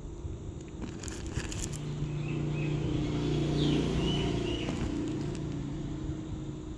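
A motor vehicle passing by: a steady engine hum and road noise that grow louder, peak about four seconds in, then fade. A few faint high chirps sound in the middle.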